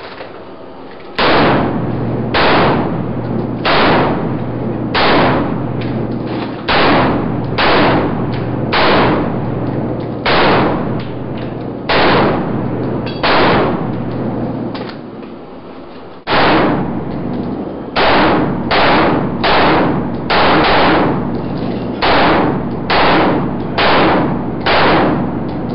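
M4-style carbine fired in single shots, about twenty in all, each ringing off the walls of an enclosed indoor range. The shots come about a second apart at first and quicken to about two a second in the last third.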